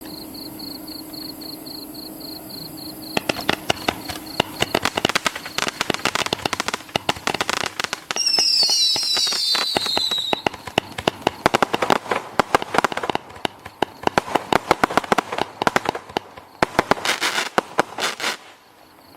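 Boom Wow 'Hello Summer' 200-gram consumer fireworks cake firing: rapid sharp pops and crackle start about three seconds in and stop shortly before the end. A falling whistle sounds over the shots about eight seconds in.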